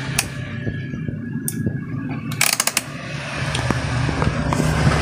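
Sharp clicks and rattles of multimeter test leads and a power cord being handled, a few single clicks and then a quick cluster, over a steady low rumble that grows louder toward the end.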